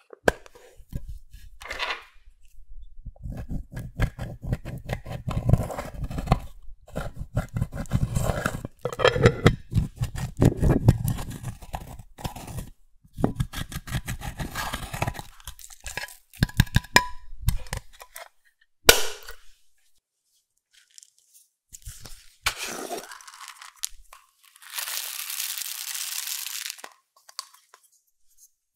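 Close-up crunching and crackling as slime and crushed makeup are squeezed and mixed by hand, in dense runs of sharp clicks. Near the end there is a single loud click and then a steady hiss lasting about two seconds.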